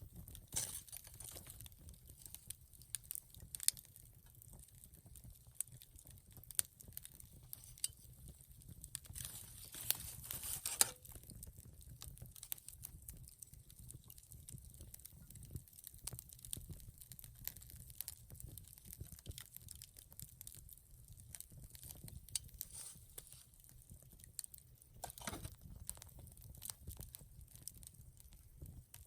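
Wood campfire crackling, with irregular sharp pops and snaps over a low steady rumble of the flames. A brief hissing stretch comes about ten seconds in.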